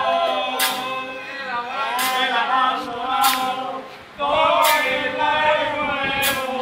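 Several men singing a song together, with a violin playing along. The singing breaks off briefly about four seconds in, then resumes.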